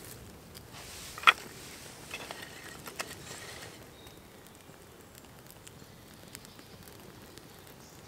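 A bundle of dry twigs is laid over burning birch bark tinder, with a sharp snap about a second in and a few smaller cracks and rustles. After that, the small kindling fire crackles faintly with scattered ticks.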